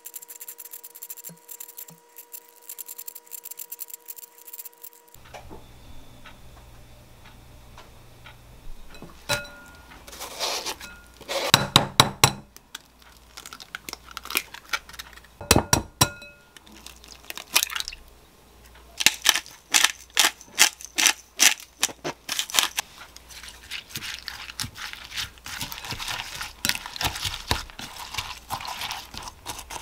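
Cabbage shaved into fine shreds with a handheld peeler, a rapid rasping that stops short. Then come a few sharp knocks as eggs are cracked on a glass bowl, followed by wooden chopsticks beating egg through the shredded cabbage, clicking quickly against the glass.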